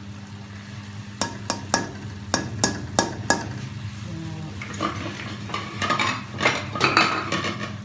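Metal slotted spoon clinking and scraping against a metal pot of rice as it is stirred: a quick run of about seven sharp clinks, then rougher scraping and clatter in the second half.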